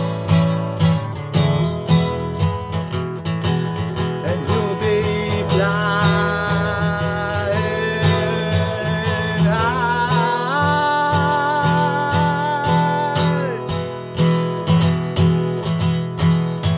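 Country-style song break: acoustic guitar strummed in a steady rhythm, with a held melody line sliding between notes over it from about five seconds in until about thirteen seconds in.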